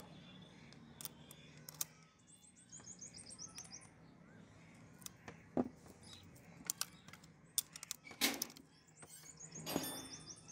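A few sharp metal clicks and taps from a ring spanner worked on the valve tappet adjuster of a small single-cylinder motorcycle engine, the loudest about halfway through and twice near the end. Small birds chirp in quick runs of high notes in the background, twice.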